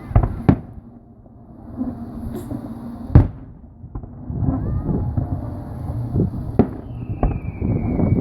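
Aerial fireworks bursting: several sharp bangs, the loudest about three seconds in, over steady crackling. Near the end a long whistle starts and slowly falls in pitch.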